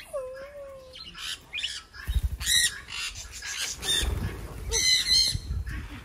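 Parrots squawking: several short, harsh calls from about two seconds in, over a low rumble.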